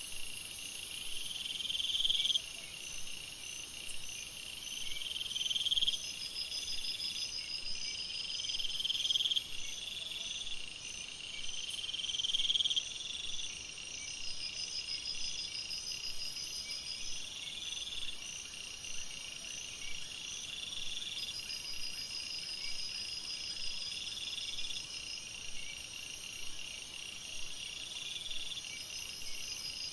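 Night-time chorus of calling insects and frogs: a trill that swells and fades about every two seconds, over steady rows of fast, high chirping.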